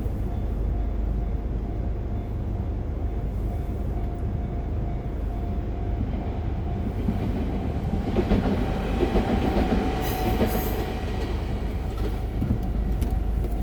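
Nishitetsu Kaizuka Line electric train running through a level crossing: a steady rail rumble that swells into louder wheel clatter about eight to eleven seconds in.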